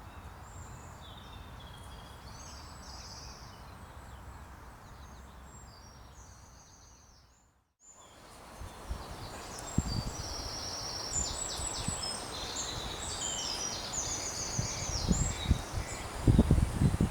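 Songbirds singing over a steady hiss of woodland ambience. About seven seconds in the sound fades out and comes back with louder birdsong, together with scattered low knocks and rustling.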